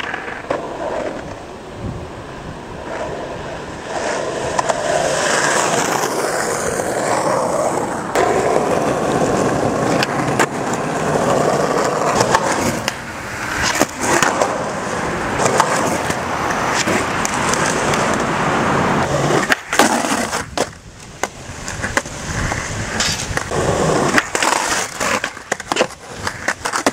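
Skateboard wheels rolling on concrete and asphalt, broken by many sharp clacks as the board's tail is popped and the board lands.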